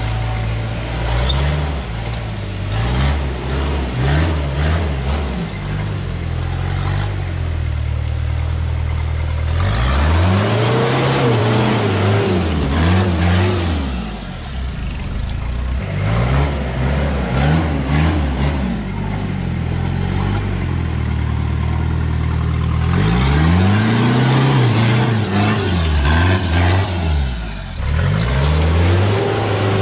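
Modified Toyota Hilux rock crawler's engine running low and slow, with repeated throttle blips that make the engine note climb and drop, in clusters about ten seconds in, around eighteen seconds in, and again towards the end as it crawls over boulders.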